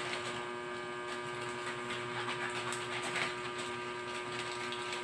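A steady electrical hum, with faint rustling from plastic packaging being handled.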